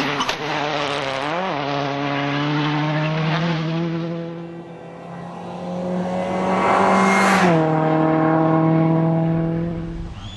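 Rally car engine passing at high, nearly steady revs, with a brief blip of the throttle about a second and a half in. It grows loudest as the car comes by about seven seconds in, and the pitch drops a little just after.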